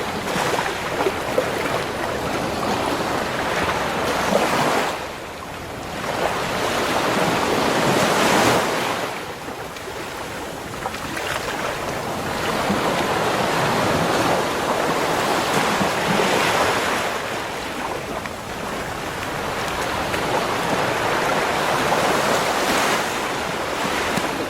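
Waves breaking and washing up a beach, the surf swelling and ebbing every few seconds in a steady wash of noise.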